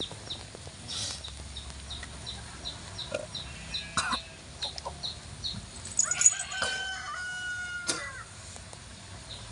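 A rooster crowing once, a long call in the second half, over a steady run of short high chirps about three a second.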